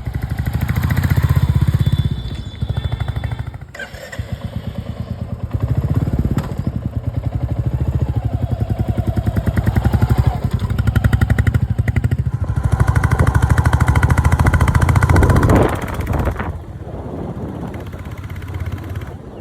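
Royal Enfield Classic 350's single-cylinder engine running through its stock exhaust, the beat rising and falling with the throttle. It is loudest for about five seconds past the middle, then drops back.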